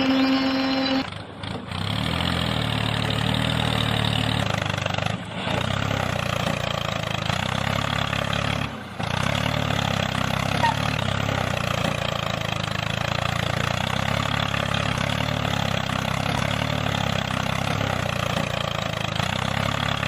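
Diesel tractor engine running at a steady chug, breaking off briefly a few times. A short steady tone sounds in the first second.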